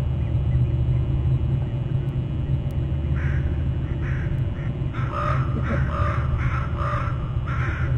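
Crows cawing: a few scattered caws about three seconds in, then a quick run of repeated caws from about five seconds on, over a steady low rumble.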